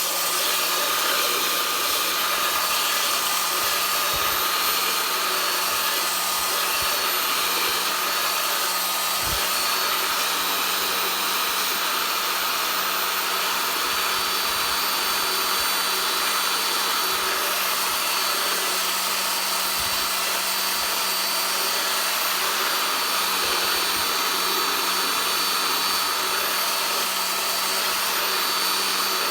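Belt sander running steadily, its belt grinding across the rusty mating face of a Detroit 6V92 exhaust manifold to flatten it and take the face down through the rust and pitting to good metal.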